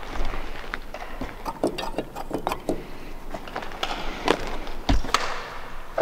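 Irregular clicks, knocks and light wooden clatter of handling and movement, with one heavier thud about five seconds in.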